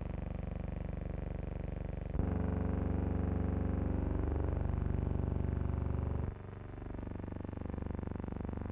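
Aircraft engines droning steadily in flight, heard from inside the cabin. The drone jumps abruptly louder and changes pitch about two seconds in, then drops back just as suddenly about six seconds in.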